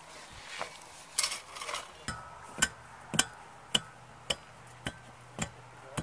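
Shovels scraping and scooping soil, then a steel tamping bar striking backfilled soil around a wooden pole in a steady rhythm of nearly two strokes a second, compacting the fill.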